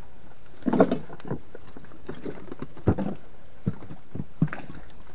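A few irregular knocks and bumps on a small wooden boat, the loudest just under a second in.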